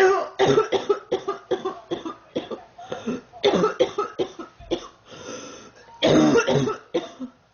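A sick girl coughing in repeated fits: many short coughs in quick succession, grouped in several clusters, stopping shortly before the end.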